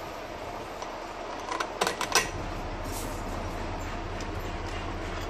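A few sharp metal clicks and clinks about two seconds in, from a bolt being handled and fitted through a pedicure chair's actuator rod end and bracket, over a steady low background hum.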